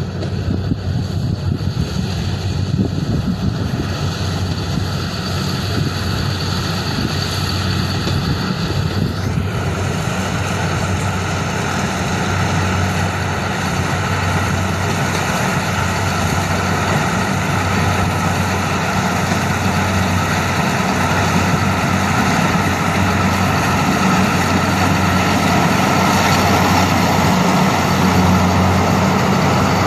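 A heavy engine running steadily with a low hum; from about nine seconds in, a rushing, grinding noise on top of it grows louder, as of machinery working.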